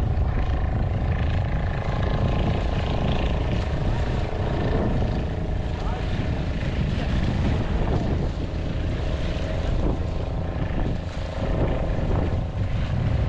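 A steady engine drone with a low rumble, with people's voices in the background.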